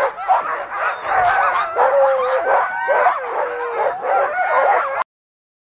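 A team of harnessed sled dogs barking and yelping, many voices overlapping in a continuous excited clamour. It cuts off abruptly about five seconds in.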